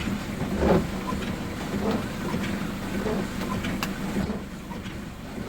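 A vehicle travelling over a broken, rough road after rain, giving a steady noise of engine and road, with a single sharp click about four seconds in.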